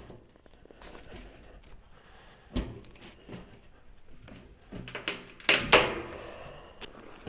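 Steel drum barrel stove being handled at its back end: a single knock about two and a half seconds in, then a loud clatter of metal knocks and scraping a little past five seconds.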